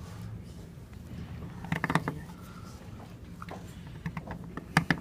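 Seal-carving knife cutting into the face of a stone seal as the characters of the inscription are carved: quick runs of short, gritty scraping clicks, about two seconds in, once more briefly a little later, and again near the end.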